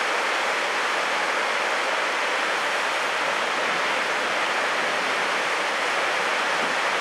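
Red River floodwater pouring through the wide-open gates of a dam and churning below it: a steady rushing of white water with no breaks.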